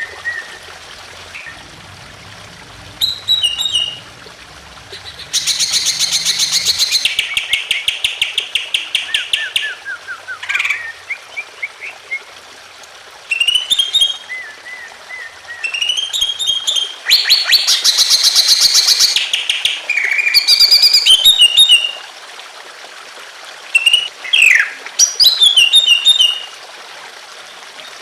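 Greater green leafbird (cucak ijo) singing loud, agitated song: long runs of rapid repeated notes and short chirped whistles in bursts, over a steady trickle of running water.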